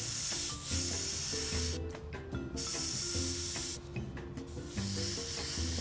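Airbrush spraying acrylic paint in three hissing bursts of a second or so each, with short pauses as the trigger is released, over faint background music.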